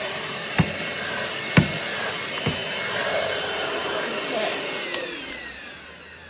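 ROOMIE TEC SlimVac cordless stick vacuum running with a steady motor whine, with three sharp knocks in the first few seconds. About five seconds in it is switched off and the motor winds down, its whine falling in pitch and fading.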